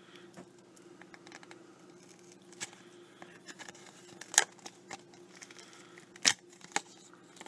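Small clicks and light scraping of a pocketknife working at a Zippo lighter's insert to pull the wick out, with two sharp metallic clicks standing out about four and a half and six seconds in. A faint steady hum underlies it.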